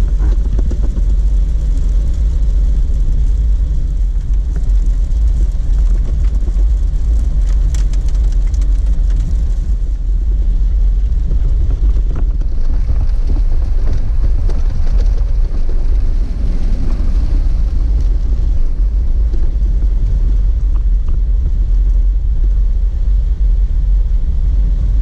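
Jeep Wrangler driving on a dirt road, a steady low rumble of engine and tyres.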